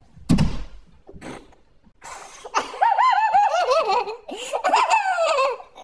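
A man laughing hard in repeated high-pitched bursts, starting about two and a half seconds in. It is preceded by a single low thump just after the start.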